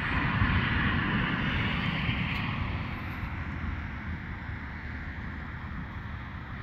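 Outdoor rushing noise with an uneven low rumble, like wind on the microphone, louder for the first two seconds or so and then easing.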